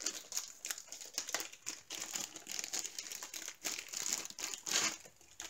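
Clear plastic packaging bags crinkling as they are handled and opened, an irregular run of small crackles.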